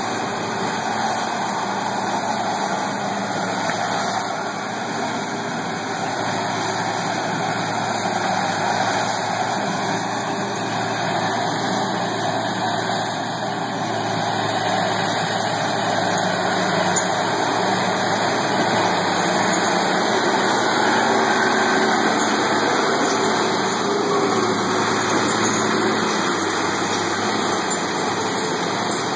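Diesel engines of heavy forestry machines, a Cat grapple skidder and an excavator, running steadily as the skidder drives through deep mud.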